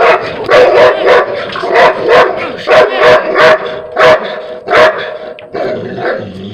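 A dog barking hard and fast, about two loud barks a second, at a raccoon it has cornered; the barking eases off about five and a half seconds in.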